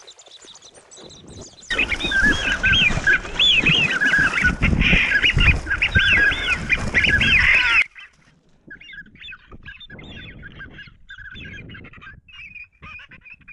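Waterfowl calling over and over in short calls that rise and fall in pitch. For about six seconds the calls are loud over a low rumble, which cuts off suddenly; fainter calls then carry on.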